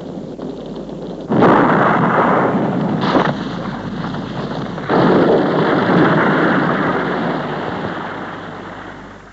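Two sudden loud blasts, about a second and a half in and again near five seconds, with a short crack between them. The second blast fades slowly over about four seconds.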